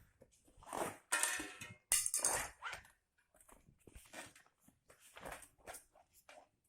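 Rubber bicycle tyre and plastic tyre levers being handled against the wheel rim: a run of short scrapes and rubs, loudest in the first three seconds, then lighter ones.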